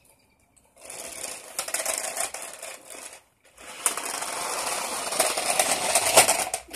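Small toy RC car's electric motor and gears buzzing as it drives over concrete, in two runs of about two and a half and three seconds with a brief stop between.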